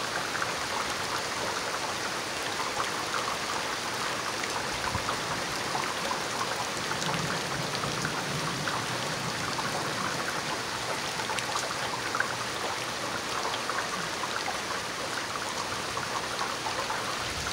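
Steady thunderstorm rain falling, an even hiss with many small drips and spatters.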